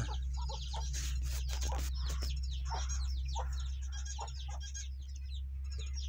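Chickens clucking, mixed with many short, high, falling chirps that keep up throughout.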